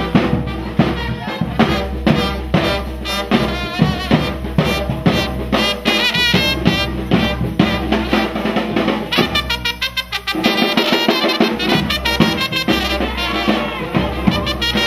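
A brass band of trumpets and drums playing a fast dance tune, the trumpets carrying quick, ornamented runs over a steady drumbeat.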